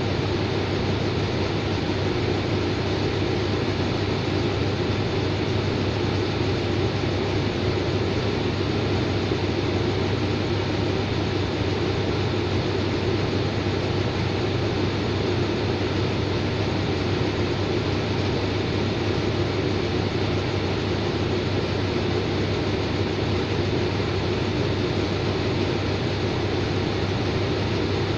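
Diesel locomotive idling steadily at a standstill, a constant low hum.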